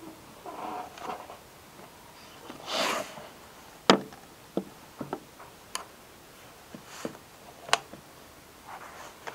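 Handling noise on a desk: a rustle of paper about three seconds in, then about six sharp taps and knocks over the next four seconds, the first the loudest, as papers and a book are moved about.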